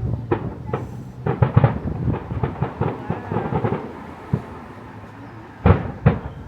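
Fireworks display going off: a quick run of bangs and crackles about a second in, scattered pops, then two loud booming bursts near the end.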